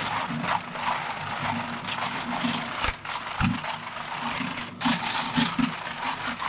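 Twin-shaft shredder's steel cutter discs crunching and grinding a hard plastic toy, with repeated sharp cracks of the plastic breaking and a low thud about three and a half seconds in.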